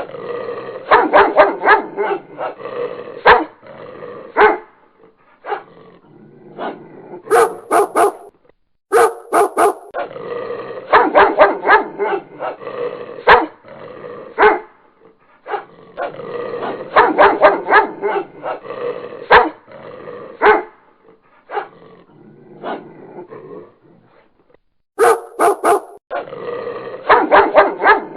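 Dog barking repeatedly in quick runs of several barks, with short pauses between the runs.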